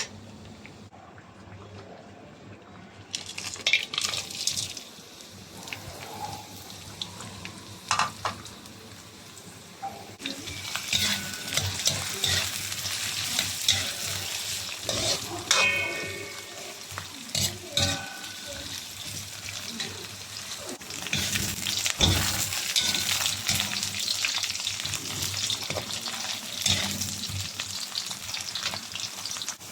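Food frying in hot oil in a pot, a steady sizzle with crackles, stirred with a utensil that knocks and scrapes against the pot. The sizzling takes hold about ten seconds in and grows louder again past the twenty-second mark.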